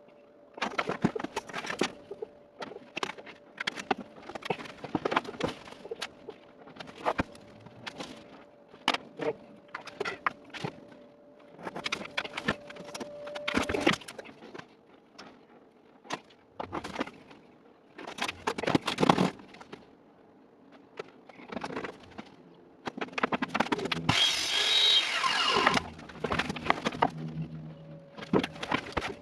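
Irregular knocks and clatters of melamine particleboard panels being handled and set down, then a power saw cutting through the board from about 24 seconds in.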